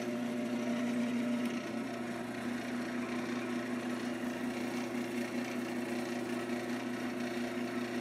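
Wood lathe running steadily at its slowest speed, a constant motor hum with a hiss over it, while a cloth towel buffs wax off the spinning African blackwood handle.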